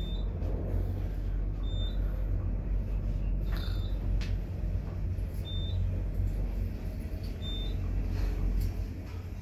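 Fujitec elevator car travelling in its shaft: a steady low rumble that eases off near the end as the car slows. A short high beep sounds about every two seconds.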